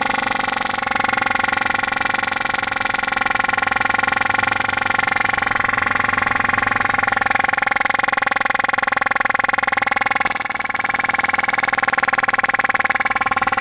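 Rotary HVAC compressor, belt-driven by a 1/3 HP electric motor, running as a vacuum pump with a steady whine while it pulls a vacuum on an oil can. The level dips briefly about ten seconds in, then comes back up.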